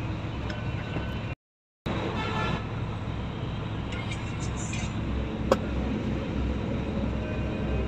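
Steady low rumble of a bus engine heard inside the passenger cabin, broken by a brief cut to silence a little over a second in. A single sharp click comes about five and a half seconds in.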